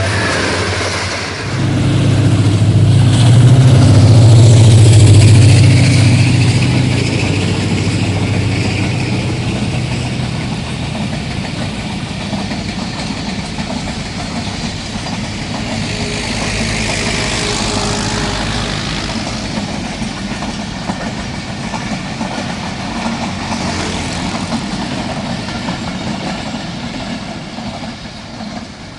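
A diesel-electric locomotive-hauled passenger train passes. The horn's tail drops in pitch at the very start. The locomotives' engine drone swells to a peak about four to six seconds in, and the coaches then rumble steadily along the rails, fading near the end.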